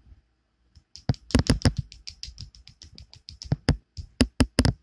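Small plastic Roblox toy figures and their toy knives clicking and knocking together in a fast, irregular run, as in a mock sword fight, with a few sharper knocks about a second in and a cluster near the end.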